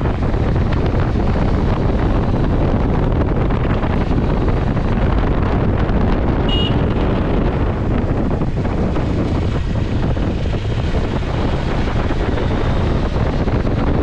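Strong wind buffeting the microphone over a steady rumble, as when recording from a moving vehicle. A short high beep sounds once about halfway through.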